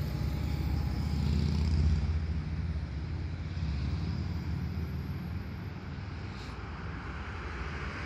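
Two coupled Üstra TW 6000 light-rail cars pulling away along the tracks: a low rumble of wheels and running gear, loudest in the first two seconds, then fading as the train draws off.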